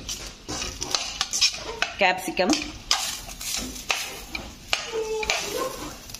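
Chopped capsicum being scraped by hand off a stainless steel plate into a steel kadai of frying onion and tomato: repeated taps and scrapes of the plate on the pan's rim, with a light sizzle as the pieces land in the hot oil.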